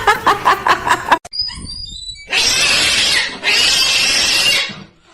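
An animal's two long, harsh, noisy calls of about a second each, with a short gap between them. Before them comes a quick run of rhythmic pulses that cuts off about a second in.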